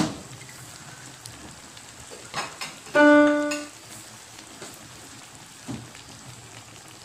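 A single piano-like note, lasting under a second, sounds about three seconds in and is the loudest thing heard. Under it run a steady low hiss of the simmering pan and a few soft knocks.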